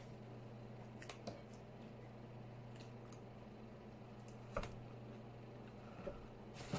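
Close-up eating sounds: a fork clicking against the plate a few times while chili cheese fries are chewed, over a steady low hum. The loudest click comes a little past halfway.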